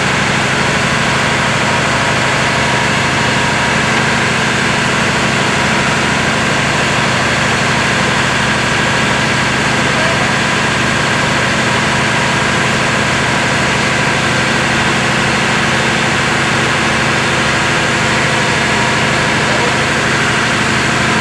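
An engine running steadily at constant speed: a loud, unchanging machinery drone with several steady tones.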